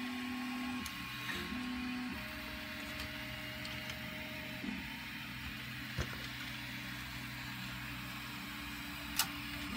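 A low steady hum with faint held tones under it, and two sharp clicks of 3D-printed plastic parts being handled: one about six seconds in and a louder one near the end.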